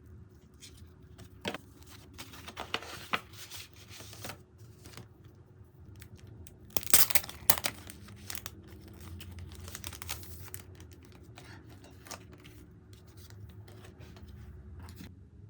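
Tearing and crinkling, with scattered clicks and handling knocks. The loudest tearing comes about seven seconds in.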